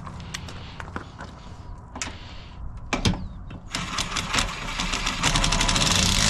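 Metal clicks and clinks of tools and hardware, then, a little over halfway through, a power impact tool starts its rapid hammering and runs steadily on, driving down the bolts that hold the trailer jack to the tongue.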